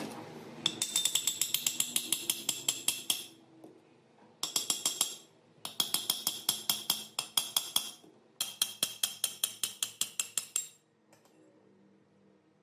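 Ratchet wrench clicking in four quick runs of rapid metallic ticks, about nine a second, with short pauses between them.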